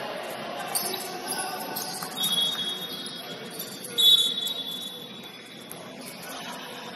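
Sounds of an indoor basketball game in an echoing gym: players' shouts, ball bounces, and short high-pitched squeaks, likely sneakers on the court. The squeaks come about two seconds in, louder at about four seconds, and again at the end.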